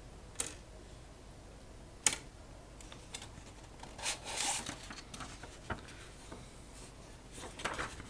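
Handling noises at an IBM Wheelwriter electronic typewriter: a few sharp clicks, the loudest about two seconds in, and paper rustling briefly around four seconds in and again near the end as a sheet is lifted away.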